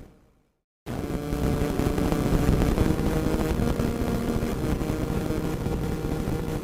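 Radio static: a steady hiss with crackles and a faint steady tone underneath. It fades out right away, drops to silence for a moment, then cuts back in abruptly just under a second in and runs on steadily.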